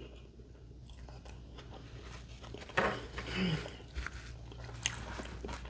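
Close-miked chewing and biting of a grinder sandwich, with soft wet clicks and smacks of the mouth, louder for a moment about three seconds in.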